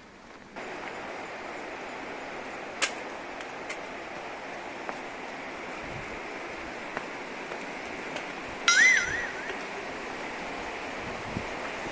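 Steady rush of flowing river water, starting suddenly about half a second in, with a sharp click near 3 s and one short, loud, wavering whistled call near 9 s.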